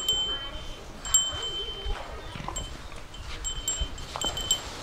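High, clear chime tones ringing on and off several times, each a short steady note.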